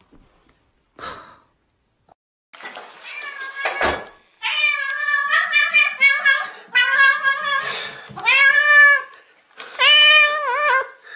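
A scuffling noise ending in a thump, then a domestic cat meowing loudly about five times in quick succession, each meow long and rising and falling in pitch. The cat is greeting its owner after being left alone.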